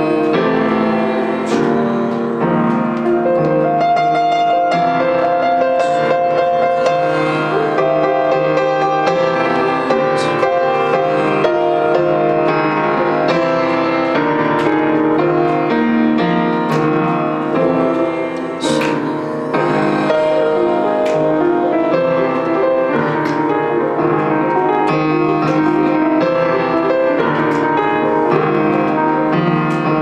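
Grand piano playing a jazz piece, steady and unbroken.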